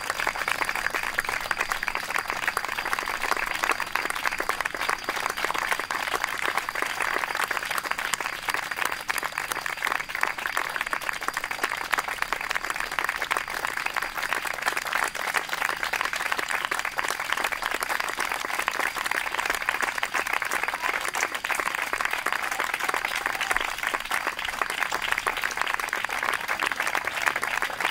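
Audience applauding steadily and without a break: many hands clapping at once.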